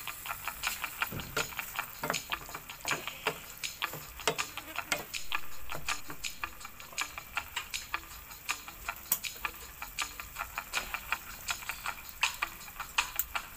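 Squid frying in melted margarine in a pan: a steady sizzle with many irregular sharp pops and spits, several a second. A wooden spatula stirs the squid around the middle.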